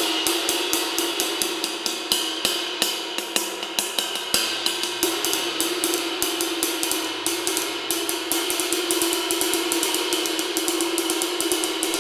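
Repaired 24-inch Levite handmade ride cymbal played with a stick in a steady run of quick strokes, ringing in a continuous wash with a strong steady low tone underneath. A few strokes come harder in the first half. This is a sound test of the cymbal after its crack damage has been repaired.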